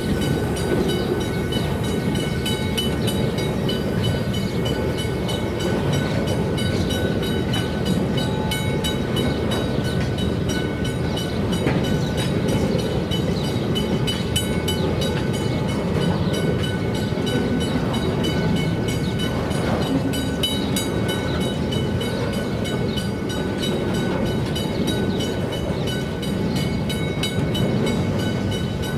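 Grain hopper wagons rolling through a level crossing: a steady rumble with occasional wheel knocks. Throughout, the crossing's McKenzie & Holland teardrop bell rings in quick, even strokes, as it does while the gates are down.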